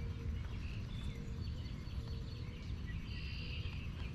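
Outdoor ambience: scattered small bird chirps over a steady low rumble.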